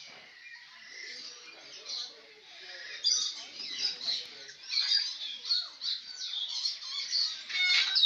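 Caged birds chirping and calling in an aviary: a chorus of many short, high chirps with the odd squawk, growing busier about three seconds in.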